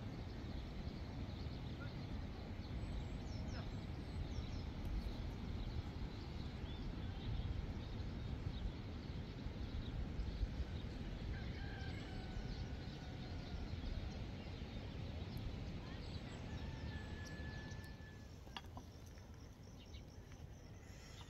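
Steady low outdoor rumble with a rooster crowing in the distance, twice, and small birds chirping faintly. The rumble drops lower near the end.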